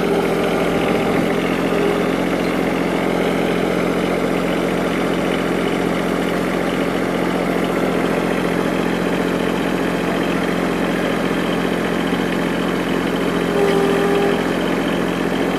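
Tractor engine running at a steady speed. Near the end the level rises slightly and a short whine sounds.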